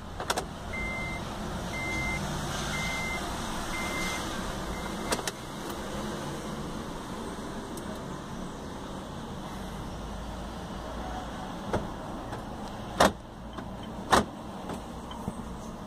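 About five short, high electronic beeps roughly a second apart, the last ones fainter, in a car cabin during key programming on a 2016 Honda Fit. Later, two sharp clunks a little over a second apart.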